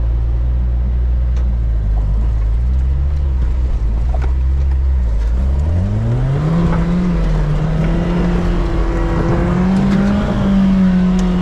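Suzuki 4x4's engine heard close up from the bonnet, running steadily at low revs, then revving up about halfway through and held at high revs under load as it climbs the slope.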